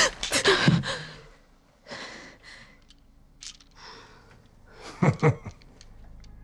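A person breathing heavily and unsteadily. There is a loud voiced exhale that falls in pitch in the first second, softer breaths about two and four seconds in, and a short voiced breath about five seconds in.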